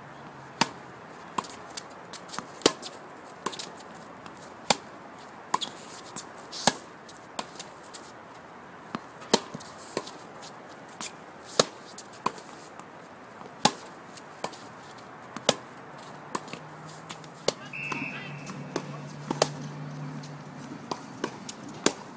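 Tennis balls struck by rackets and bouncing on a hard court: sharp pops about once or twice a second, irregularly spaced, as the two players trade shots.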